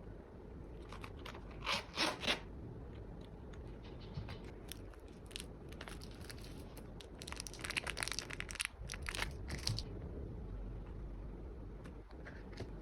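Packaging being handled during an unboxing: short crinkling and tearing rustles about two seconds in, then a longer run of quick crackles and rustles a few seconds later.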